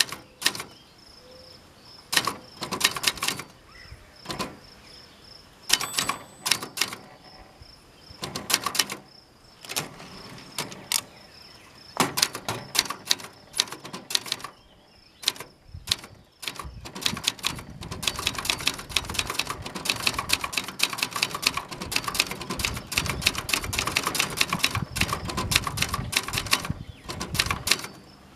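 Brother JP-1 manual typewriter (Sears label) being typed on: key strikes come in short bursts with pauses at first, then fast continuous typing through the last third. A metallic rattle runs under the strikes, from the thin metal table the machine stands on.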